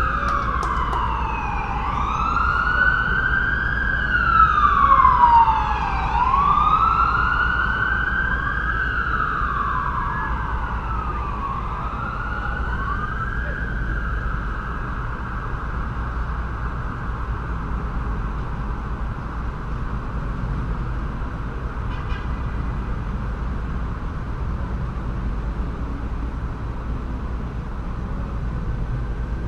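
Emergency vehicle siren wailing, rising and falling about every three seconds, then fading away about halfway through, over the steady low rumble of city traffic.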